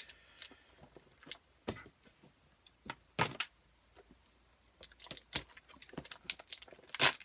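Handling noises of a cardboard mystery box being opened: scattered sharp clicks and scrapes with short gaps, louder about three seconds in and loudest near the end.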